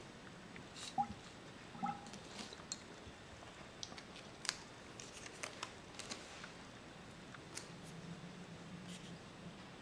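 Faint handling of glassware: scattered light clicks and taps, with two slightly louder knocks about one and two seconds in, as a glass dab rig is picked up and moved.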